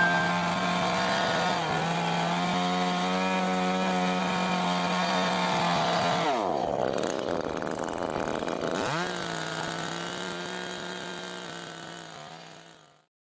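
Two-stroke chainsaw running at high revs. About six seconds in it bites into the wood log: the engine pitch drops sharply under load with a rasping cutting sound for about two seconds, then climbs back to full revs. The sound then fades out and cuts off near the end.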